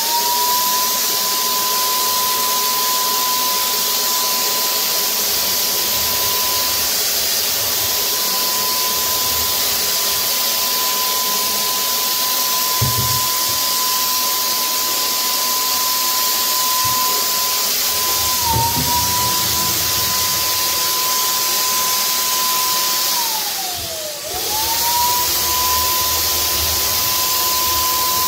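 Handheld electric paint sprayer running, a steady high whine over a rushing air hiss. A little over 23 seconds in it winds down briefly and then spins back up to speed.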